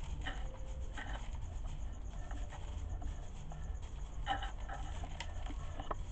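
A young duck pecking dried corn kernels off a tile floor: irregular clicks and taps of its bill against the kernels and tiles, with a few louder taps about a second in and around four and five seconds in, over a steady low rumble.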